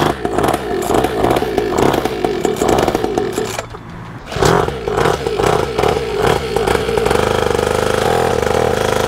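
Small single-cylinder two-stroke 50cc pit bike engine running just after a pull-start, still cold. It runs unevenly, dips briefly and picks up again about four seconds in, then settles into a steady idle.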